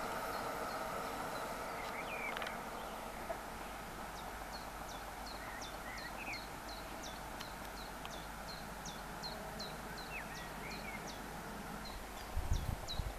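A small bird singing a long run of short, high, falling notes, about two or three a second, with a few lower notes mixed in. A faint steady hum fades out in the first two seconds, and low thumps come in near the end.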